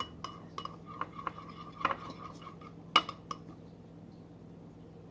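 A spoon stirring glue in a mixing bowl, scraping and clinking against the bowl with a few sharp clinks, the loudest about three seconds in; the stirring dies away over the last second or two.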